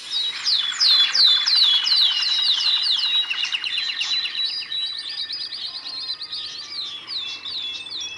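Birds chirping: a quick run of high, downward-sliding chirps, about three a second, loudest in the first few seconds, with a short trill in the middle and more chirps near the end.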